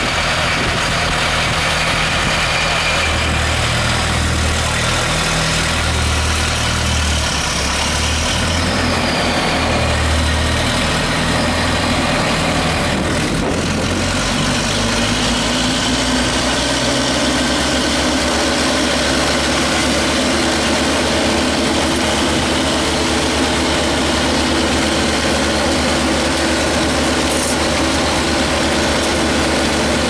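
Trailer-mounted industrial vacuum loader running steadily: a loud engine and blower drone with air rushing through the suction hose. Around halfway through the sound changes as the hose is worked over a pile of debris.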